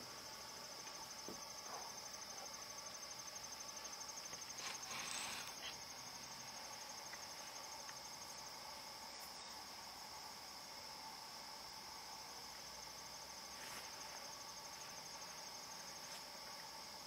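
Crickets chirping in a steady, fast, high-pitched trill. About five seconds in, a brief noisy rustle lasting about a second stands out above them, and a few faint clicks follow later.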